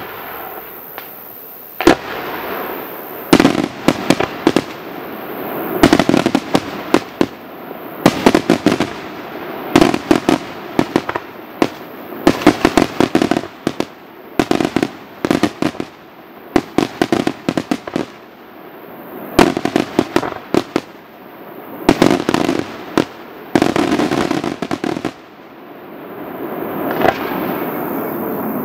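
Aerial fireworks display: shells bursting in rapid volleys of sharp bangs, packed close together, with a couple of brief lulls between salvos.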